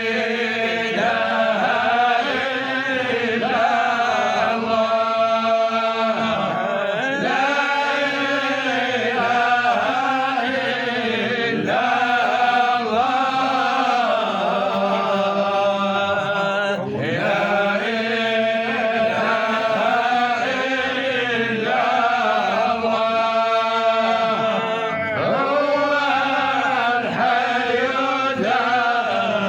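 Sufi devotional chanting of an Arabic qasida, a man's voice drawing out long, winding melodic lines over a steady held low note.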